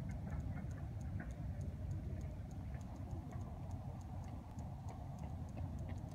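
Wind rumbling steadily on a phone microphone, with faint, evenly spaced ticks about three times a second.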